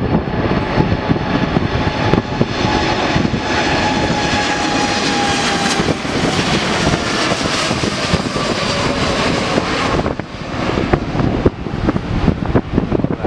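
Vietnam Airlines Boeing 787-9's twin jet engines at take-off power, passing low overhead: loud jet noise with a whine that falls in pitch as the aircraft goes by, easing off about ten seconds in. Wind gusts on the microphone.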